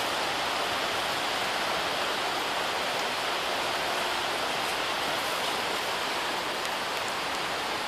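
Steady rain falling on the plastic sheeting of a polytunnel, heard from inside as an even hiss with a few faint single drop ticks.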